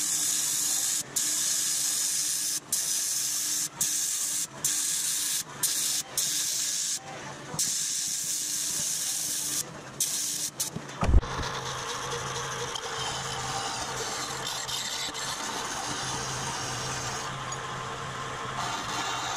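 TIG welding arc on thin aluminum sheet: a hissing buzz that starts and stops about a dozen times over the first eleven seconds as short welds are laid along a seam. About eleven seconds in there is a sharp knock, then a steady machine noise with a low hum runs on.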